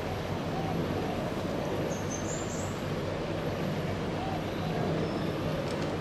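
Steady outdoor background rumble, with a short, high rising chirp about two seconds in.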